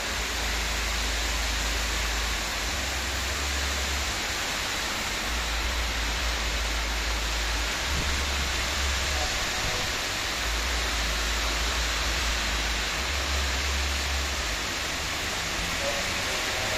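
Heavy rain pouring down: a steady, even hiss, with a low rumble that comes and goes underneath.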